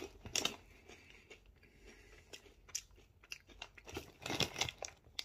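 A Cheetos corn snack being chewed with mouth-close crunching. There is a crisp crunch about half a second in, then scattered quieter crunches and a denser run of crunching around four seconds in.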